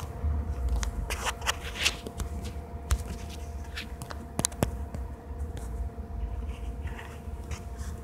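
Handling noise: scattered light clicks and scrapes, with a few sharper ticks, over a low rumble and a faint steady hum.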